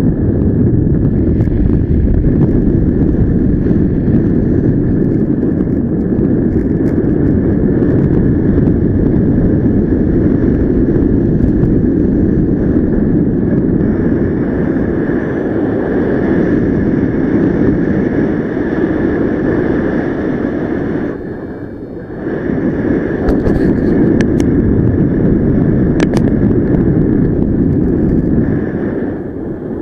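Rushing wind noise from airflow over the microphone in paragliding flight, with a steady high tone running above it. The wind noise dips briefly about two-thirds of the way through and again near the end.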